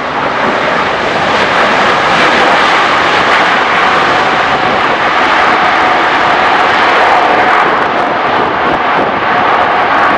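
Jet engine noise from an Airbus A380-861 rolling out on the runway after landing, its four Engine Alliance GP7200 turbofans running loud and steady with a whine mixed in. The noise swells in the first second or two, then holds.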